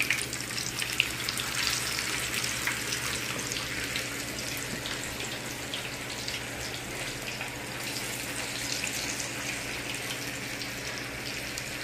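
Marinated chicken pieces deep-frying in a wok of hot oil: a steady hiss of bubbling oil with many small crackles and pops, over a low steady hum.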